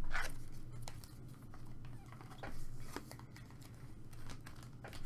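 Faint handling of trading cards: a few soft taps and slides as cards are flipped through one by one, over a low steady hum.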